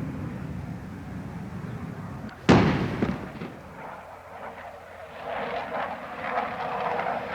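Air-strike explosion sound effect: a low rumble, then a single sharp blast about two and a half seconds in that dies away into rumbling. A rushing noise builds again near the end.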